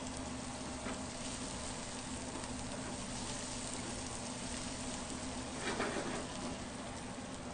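Diced onion sizzling in hot margarine in a frying pan while a silicone spatula stirs it. The sizzle is steady, with one brief louder stretch about six seconds in.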